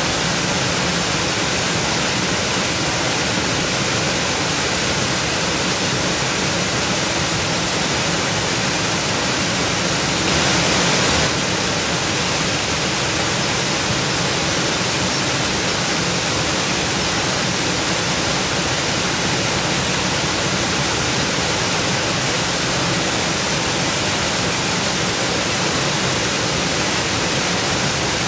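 Steady rush of water from a fast stream tumbling over rocks, with a slightly louder surge lasting about a second roughly a third of the way in.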